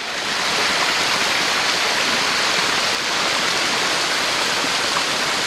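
Waterfall pouring down a rock face, a steady loud rush of falling water that swells in the first moment and then holds even.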